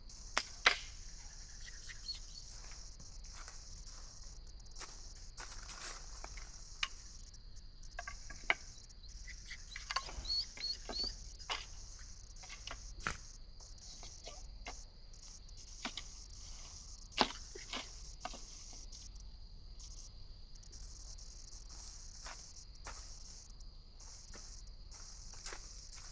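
A steady, high-pitched chorus of insects, crickets or cicadas, with scattered short clicks and knocks over it, the sharpest about a second in and near the middle.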